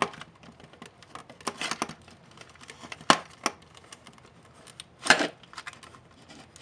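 Irregular clicks, taps and short rustles of hard plastic flashlight-housing parts and wiring being handled and pressed into place, with the sharpest clicks about three and five seconds in.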